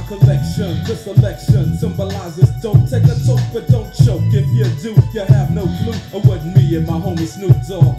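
Hip hop track with rapping over a heavy, steady bass beat.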